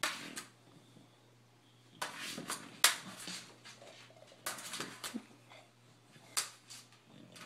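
Several short bursts of sharp clicks and taps on a laptop, from typing on the keyboard and an English bulldog bumping the screen.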